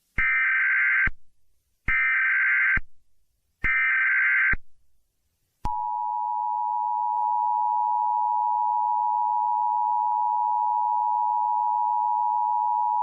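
Emergency Alert System tones: three bursts of SAME digital header data, each about a second long with short gaps between them, then the steady two-tone EAS attention signal starting a little before six seconds in.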